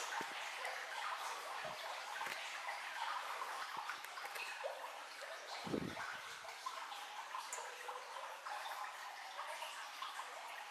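Water trickling and dripping in a limestone cave: a steady wash with scattered small drip ticks, and one low thump a little past halfway.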